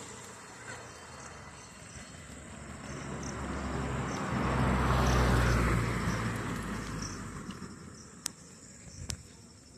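A motor vehicle driving past, its engine and tyre noise swelling to a peak about halfway through and then fading away, with two sharp clicks near the end.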